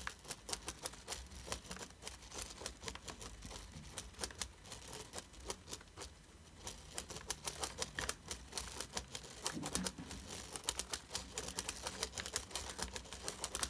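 Plastic Spirograph gear wheel being rolled by pen around the inside of its toothed ring, the teeth clicking in quick, uneven runs as the pen traces the pattern, easing off briefly midway.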